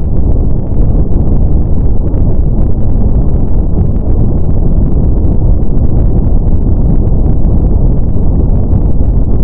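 Steady brown noise: a deep, even rushing hiss, strongest in the low range and dull above, with no changes.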